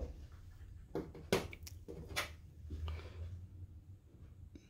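Several short clicks and knocks, the loudest about a second and a half in, as steel connecting rods are handled and set on a small digital scale, over a low steady hum.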